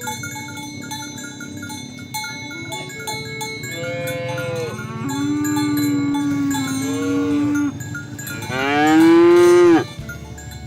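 Cattle mooing: a long, low moo starting about four seconds in, then a louder moo near the end that rises and falls in pitch and cuts off suddenly. Bell-like tinkling notes run underneath.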